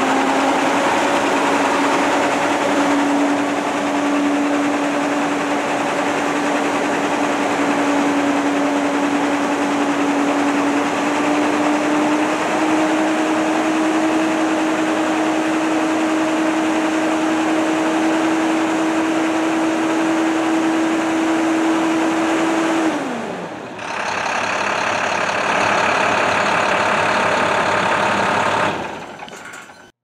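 Vehicle engine running with a steady whine that rises as it comes up to speed, holds for about twenty seconds, then falls away and stops. A brief rushing noise follows before the sound cuts off near the end.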